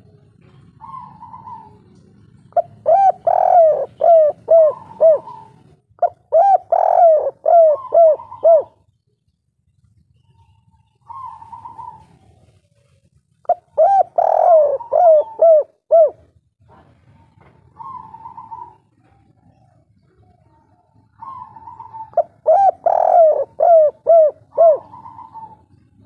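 Spotted dove cooing in the 'kuk 3' song style: four loud phrases of several rounded coos each, with a short softer, higher call before or between the phrases.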